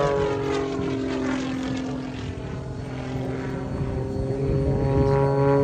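Aerobatic biplane's propeller engine passing overhead. Its note drops in pitch and fades until about halfway, then grows louder again as the plane comes back around.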